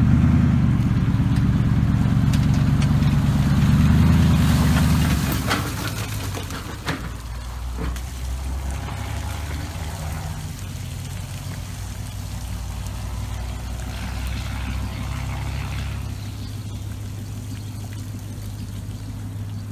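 Truck engine running close by and loud for the first five seconds, then dropping away as the truck pulls the boat trailer up out of the ramp water, with water pouring and trickling off the trailer. A lower steady engine hum carries on afterwards.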